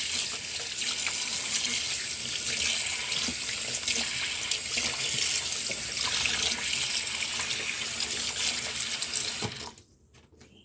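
Kitchen tap running steadily into a sink while fish is rinsed, then turned off abruptly near the end.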